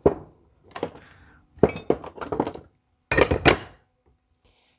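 Metal hand tools clinking and knocking against each other in a series of sharp, ringing clinks, with a denser clatter about three seconds in.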